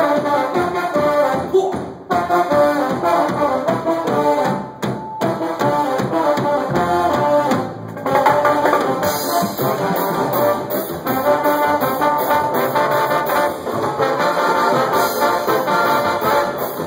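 Brass band playing a medley live, with trombones and trumpets over a steady beat. The music dips briefly about halfway through, then carries on.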